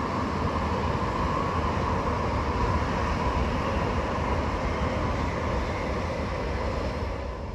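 Chinese high-speed train running at speed: a steady rumble and rushing noise.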